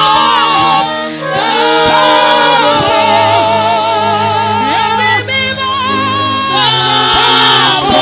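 Gospel singing: several voices singing held, wavering notes together over a keyboard bass line.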